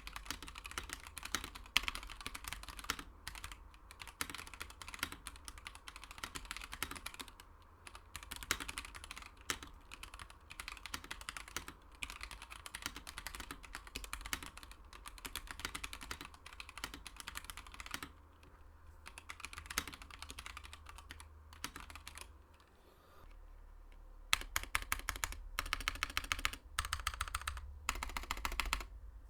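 Typing on a Monstargears Ninja 87 mechanical keyboard with yellow switches, PBT keycaps, an aluminium plate and an acrylic case: a steady run of key clacks. There is a short pause about 23 seconds in, then faster typing.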